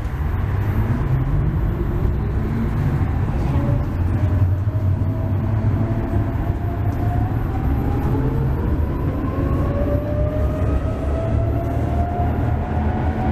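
Tram heard from inside the passenger cabin: a steady low rumble of the car running on the rails, with a motor whine that rises slowly in pitch from about three seconds in as the tram gathers speed.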